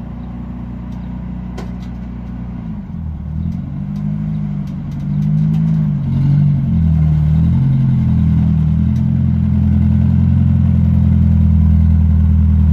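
Nissan 720 pickup engine running as the truck backs in close, growing louder, its exhaust note rising and falling with the throttle between about three and nine seconds in, then settling to a steady low idle.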